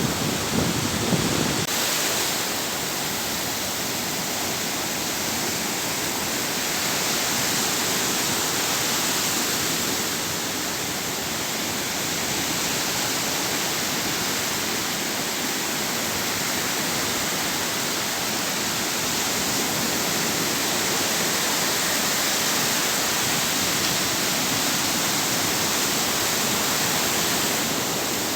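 Sea waves: a steady rush of surf that swells and eases slowly. The deeper rumble under it drops away about two seconds in.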